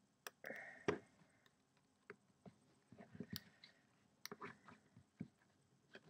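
Faint, irregular clicks and short scrapes of a scissor blade working at the top edge of a hard plastic box, trying to pry it open.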